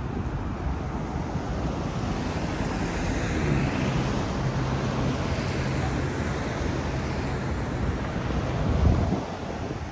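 City street traffic: a vehicle passes with a low engine hum and hissing tyres, and a short low thud comes near the end.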